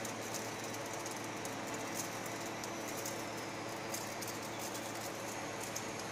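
Flake ice machine running with a steady hum and hiss, with scattered light ticks as ice flakes drop onto the pile.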